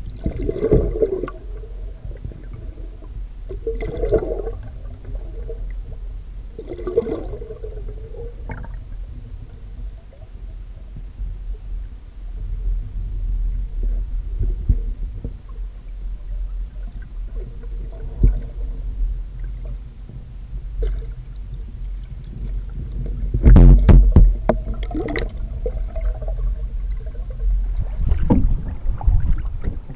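Muffled water heard through a submerged camera beneath a kayak's hull: a steady low rumble with gurgling, short water swishes every three seconds or so in the first several seconds, and a louder churning burst about 24 seconds in.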